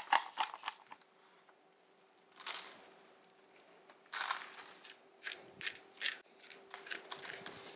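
Coarse black pepper being ground onto a raw pork roast: short runs of crunchy clicks from the grinder, broken by pauses and two brief rustles.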